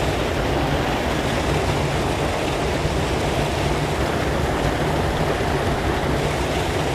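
Water pouring over a flow-over dam spillway: a steady, loud rushing.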